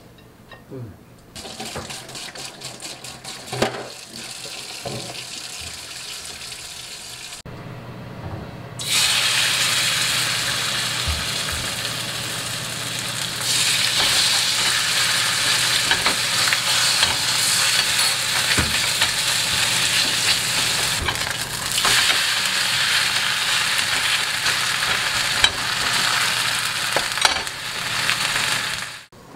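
Seafood pancake batter stirred in a glass bowl, with light scraping clicks. About nine seconds in, a loud, steady sizzle starts as the batter goes into a hot frying pan and fries, growing louder a few seconds later.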